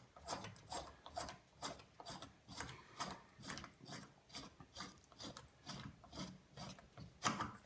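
Threaded trim part of a Grohe faucet being unscrewed by hand: a faint run of short grating scrapes, two or three a second, as the threads rub.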